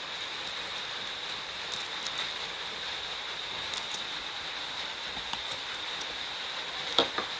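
Steady background hiss with a faint constant high-pitched whine and a few faint ticks, then a short sharp click about seven seconds in.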